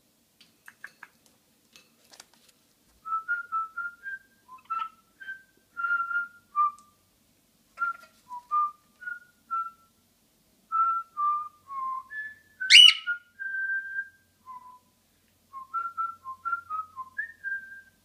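Cockatiel whistling a tune of short, clear notes that step up and down in pitch, with one loud sharp chirp about two-thirds of the way through. A few faint clicks come near the start.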